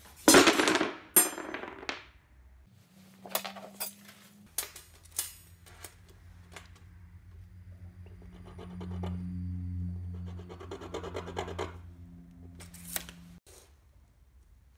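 Handling noise of a flat iron bar and a steel tape measure on a plywood bench, with scraping and sharp clicks that are loudest in the first two seconds. A scriber then scratches a mark on the bar, over a low steady hum that stops near the end.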